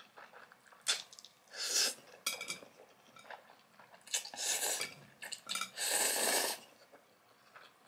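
Close-miked slurping of spicy instant noodles with melted cheese: three hissing slurps about two seconds apart, with small wet chewing clicks in between.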